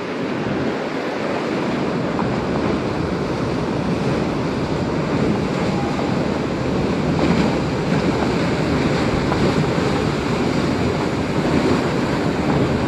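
Ocean surf rushing steadily, with wind buffeting the microphone.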